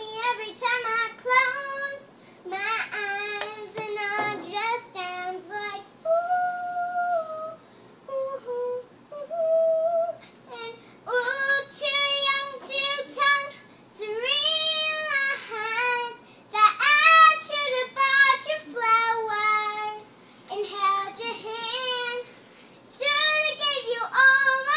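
A young girl singing unaccompanied, in phrases with short pauses between them; softer, long held notes about six to ten seconds in.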